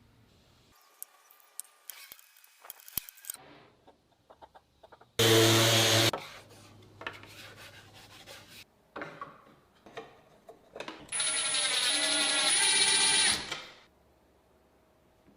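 A power tool run in two short bursts, the first about a second long and the second about two and a half seconds, with clicks and knocks from handling tools and wood in between.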